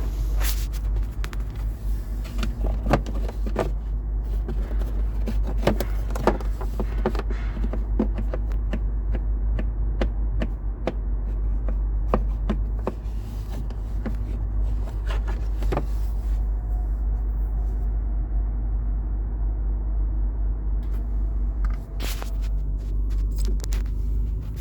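Peterbilt 579 HVAC blower running with a rushing hiss and scattered clicks, cutting out about two-thirds of the way through and coming back on near the end, over a low steady rumble. The blower switching on and off by itself is a sign of a stuck or broken actuator or blend/mode door; here it is a recirculation door whose splines were broken off by its actuator.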